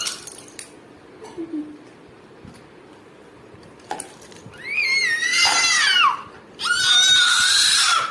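A young child lets out two loud, high-pitched shrieks: the first, about five seconds in, wavers and falls in pitch; the second is held steady for about a second and a half. Before them there are a few seconds of quiet with small taps.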